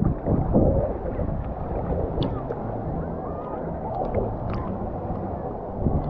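Sea water sloshing and gurgling against a handheld GoPro as a swimmer moves through small waves, dull and muffled, with a louder splash just at the start.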